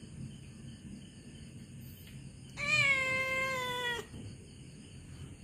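Domestic cat giving one long meow, about a second and a half, steady in pitch and dropping at the end.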